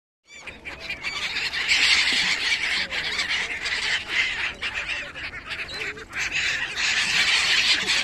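A flock of gulls calling continuously, many harsh squawking calls overlapping, with wings flapping as they crowd together on the water. The sound cuts in abruptly a moment in.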